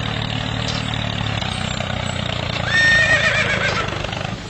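Steady low motor hum of the toy tractor as it drags a cultivator through sand. About three seconds in, a horse whinnies once, briefly and louder than the hum.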